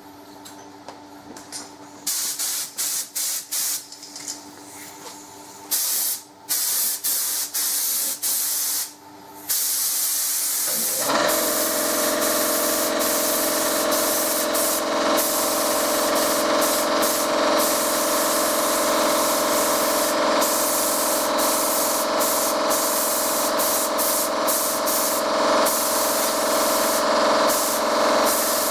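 Paint spray gun spraying primer: the air-driven hiss comes in short bursts at first, then runs continuously from about halfway through. A steady machine hum joins it about 11 s in.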